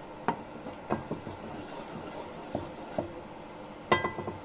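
Wooden spatula stirring thick tomato chutney masala in a granite-coated pot, knocking against the pot in scattered taps; the loudest knock, about four seconds in, leaves a brief ring from the pot.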